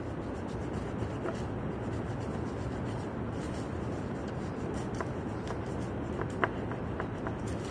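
Crayon scratching and rubbing on paper in steady colouring strokes, with a few faint light taps near the end, over a steady background hiss.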